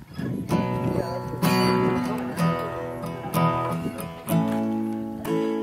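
Acoustic guitar strumming chords, a fresh strum about once a second with each chord ringing on between.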